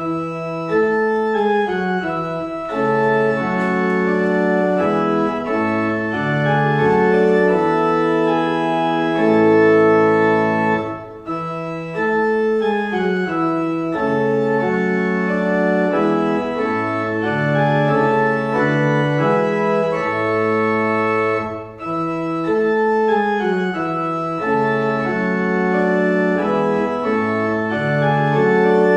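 Church organ playing slow, sustained chords in phrases, beginning abruptly from silence, with short breaths between phrases about 11 and 22 seconds in.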